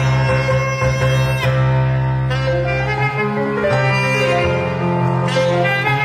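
Saxophone playing a slow melody of long held notes over digital piano accompaniment, with a steady low bass line underneath.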